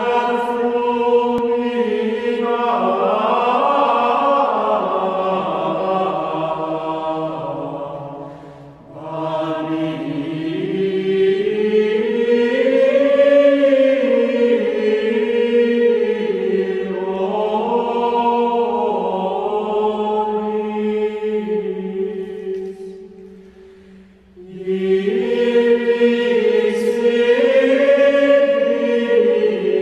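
Choral singing in slow, held notes with gently gliding pitch, in three long phrases separated by brief breaks about eight and a half and twenty-four seconds in.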